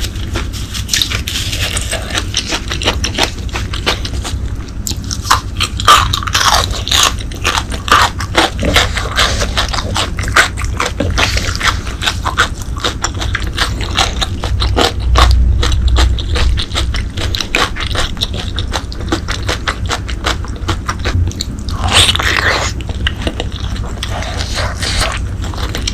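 Close-miked chewing and biting of braised pork leg: a dense run of short clicks and smacks, with a steady low rumble underneath.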